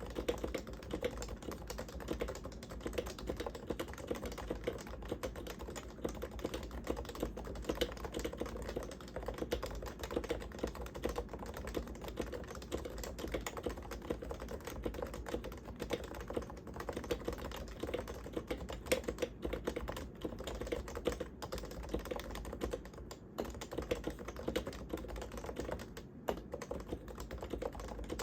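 Continuous fast typing on a Topre Realforce R1 87UW tenkeyless keyboard with electrostatic capacitive rubber-dome switches. Its sliders are lubed with Tribosys 3204 and its stabilizers with dielectric grease, giving a dense run of low, muted keystroke thocks.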